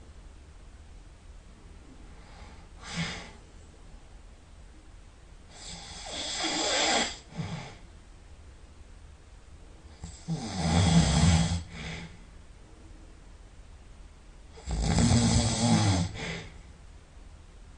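A person snoring heavily in sleep: three loud, rough snores about four to five seconds apart, each followed by a short, softer breath, with a fainter snore before them.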